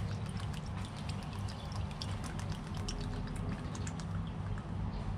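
Coconut milk poured from a small carton into a hot skillet of curry rice, with many small crackles from the simmering pan over a steady low hum.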